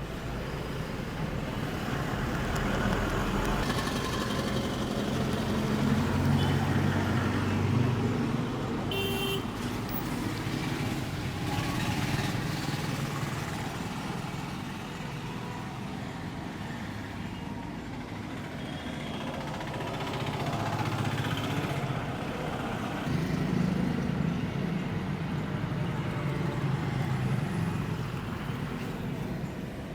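Street traffic going by, engine noise swelling and fading as vehicles pass, with a brief horn toot about nine seconds in.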